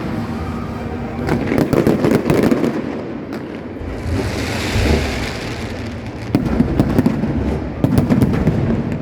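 New Year fireworks going off continuously: a dense run of bangs and crackling, with a hissing burst about four seconds in and heavier clusters of cracks in the last few seconds.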